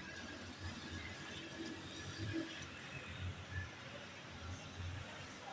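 Faint steady background noise with a low, wavering hum and no clear single event.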